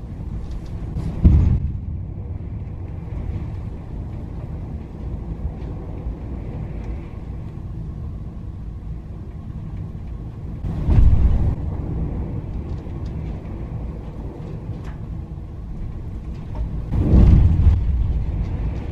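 Ferry's hull banging into the waves in rough seas: three heavy, deep bangs, about a second in, around eleven seconds and near the end, over a steady low rumble.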